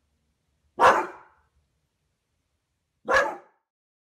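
Two loud barks from a yellow Labrador retriever at a window, about two seconds apart.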